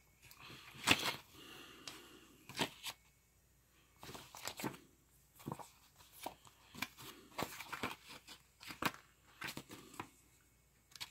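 Pages of a small paper instruction booklet being leafed through and handled: a series of short papery rustles and flicks with quiet gaps between them.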